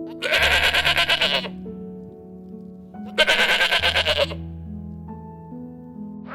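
Sheep bleating twice, each a long quavering call of about a second, over steady background music.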